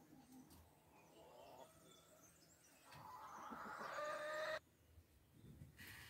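Hens clucking, faint at first, louder from about three seconds in, then stopping suddenly a second and a half later.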